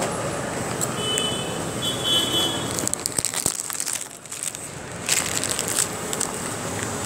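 Crackling and rustling close to the microphone, in clusters about three seconds in and again near the end, over a steady background of street traffic.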